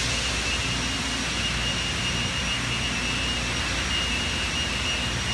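Steady drone of factory machinery: a low hum under an even wash of noise, with a faint steady high whine.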